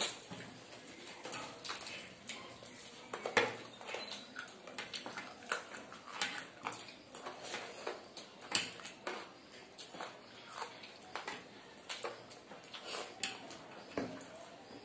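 Close-up eating sounds of people eating curry and rice by hand: irregular wet chewing clicks and lip-smacks, a few a second, with fingers squishing rice against the plates.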